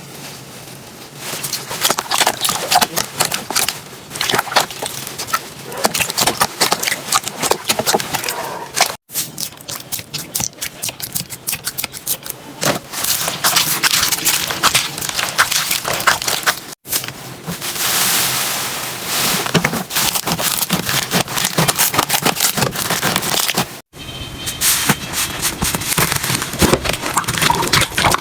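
Slime being squeezed and worked by hand, with dense runs of small crackles and pops. The sound breaks off abruptly three times as one clip cuts to the next.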